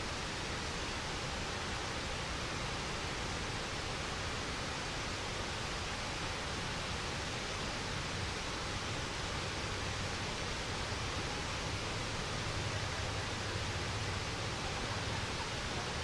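Waterfall: a steady, unbroken rush of falling water with a low rumble beneath it.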